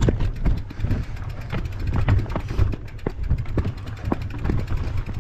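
Mountain bike riding over rough ground, with irregular rattling knocks from the bike over a continuous low rumble.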